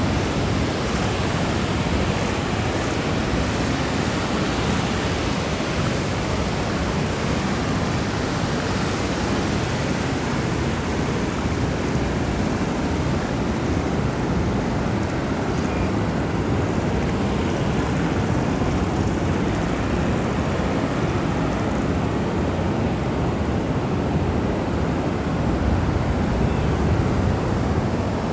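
Ocean surf: a continuous wash of waves, swelling slightly near the end.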